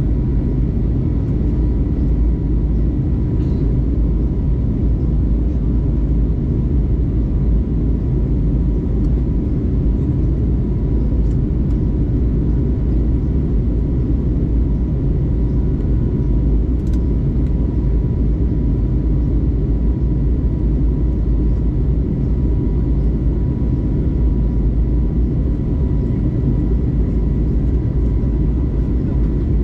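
Airbus A320neo cabin noise in the climb: a steady low rumble of engines and airflow, with a faint constant high tone above it.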